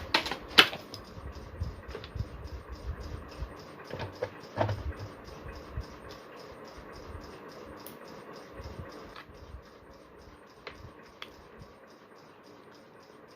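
Handling noises from plugging a USB charging cable into a port on an electrical switch board: a couple of sharp plastic clicks at the start, a few knocks about four to five seconds in, then faint scattered ticks and rustling that die down.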